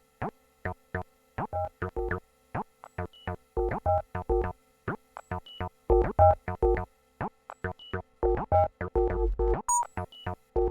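Eurorack modular synthesizer playing a sequenced pattern of short, plucked notes, about three a second with gaps between them, some with a low thump underneath and a few faint high blips.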